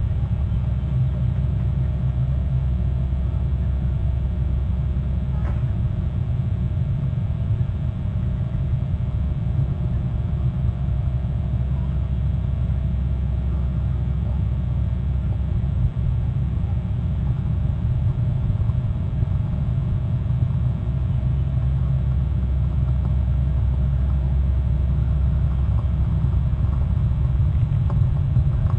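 Steady low rumble, with a faint click about five and a half seconds in.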